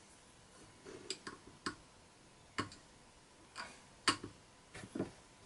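About ten light, irregular clicks and taps of small modelling tools and a bottle being handled on a workbench while decal-softening solution is applied.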